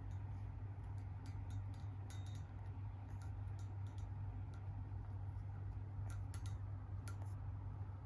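Sleeping kitten's soft snoring, heard as small irregular clicks, over a steady low hum.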